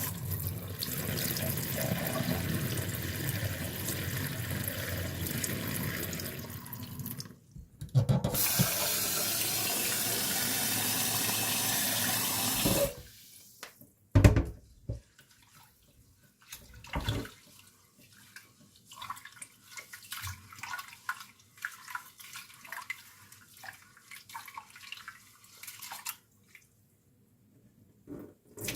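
Water running from a tap, with a short break about seven seconds in, then running harder until it is turned off about thirteen seconds in. After that come scattered knocks and light clicks.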